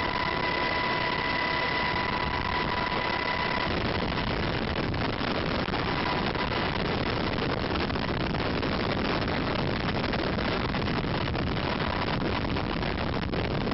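Cabin noise of a UH-60 Black Hawk in flight with the door open: a steady din of rotor, turbine engines and rushing air. A high steady whine stops about four seconds in.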